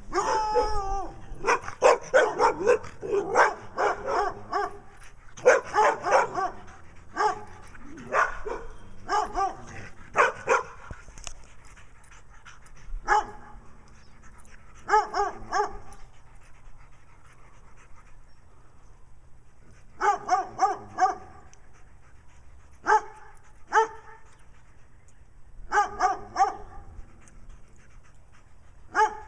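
A tan dog barking repeatedly behind a fence. It opens with a short whine, then barks in quick runs for about the first ten seconds, then in shorter groups of two to four barks with pauses between them.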